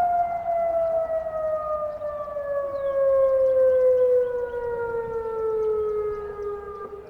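Federal Signal Modulator 6048 outdoor warning siren winding down at the end of its test cycle. It makes one long, steadily falling tone with overtones, loudest about halfway through and fading toward the end.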